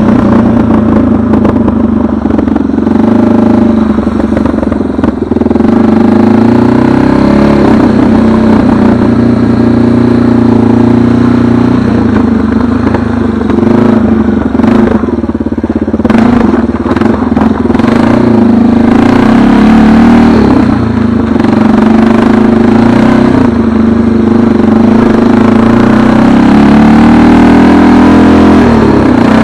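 A motor vehicle's engine running steadily, its pitch drifting up and down as the revs change.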